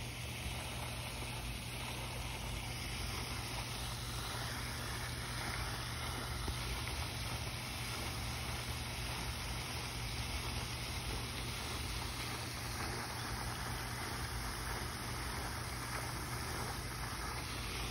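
Steady outdoor rushing noise with a constant low hum underneath and no distinct events.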